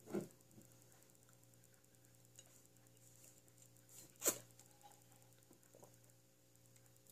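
Drinking from a glass Ramune soda bottle, mostly faint against a low steady hum, with one short sharp click about four seconds in and a softer one right at the start.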